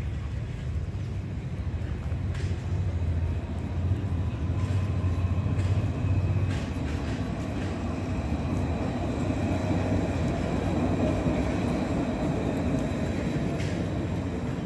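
Low steady rumble of a passing vehicle, loudest in the first half, over general street noise, with a few faint clicks.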